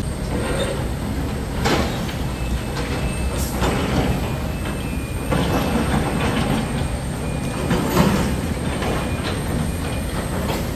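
Steady rumble of a moving vehicle, with a few faint clacks at uneven intervals and a thin high whine above it.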